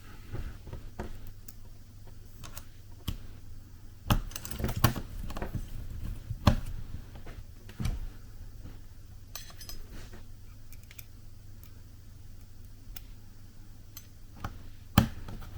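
Scattered light clicks and taps of small laptop parts being handled and fitted while a Lenovo Yoga laptop's screen hinge is reassembled, with a sharp click near the end. A steady low hum lies underneath.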